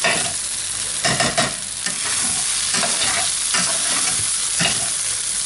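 Rice and vegetables sizzling in a hot frying pan while being stirred, a utensil scraping across the pan in several strokes.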